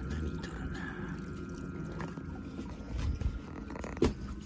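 Water trickling and dripping in a circulating biotope tank over a steady low hum, with one sharp knock near the end.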